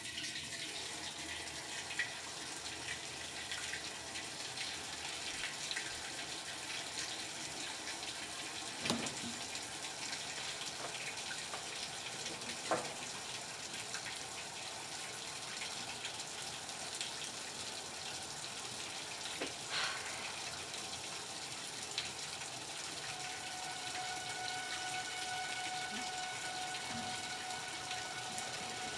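Top-loading washing machine filling with water: a steady rush of running water, with a few scattered clicks and knocks. A steady tone joins in the last few seconds.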